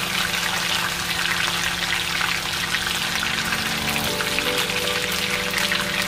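Chicken sizzling in a kawali (wok), a dense steady crackle of small pops. Background music plays underneath, its notes changing about four seconds in.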